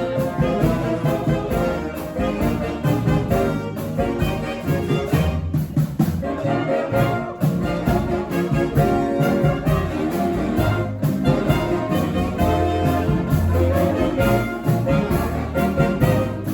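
Live brass band playing an upbeat tune: trumpets and trombones carry the melody over a steady percussion beat.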